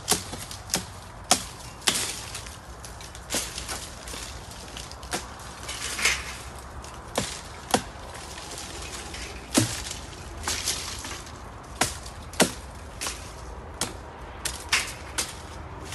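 Machete chopping mango tree branches: irregular sharp blade strikes on the wood, some in quick runs, with leafy branches rustling and shaking in between.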